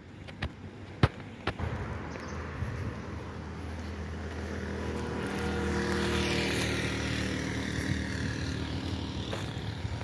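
Motorcycle engine passing by, growing louder to a peak about six seconds in and then fading. Three sharp clicks in the first two seconds, the middle one the loudest.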